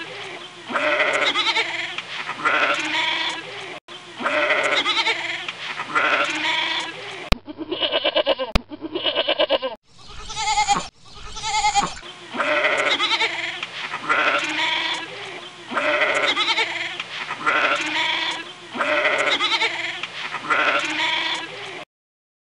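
Goat bleating over and over, one call about every second and a half. A few seconds near the middle sound different, narrower and with shorter calls, and the bleating stops abruptly near the end.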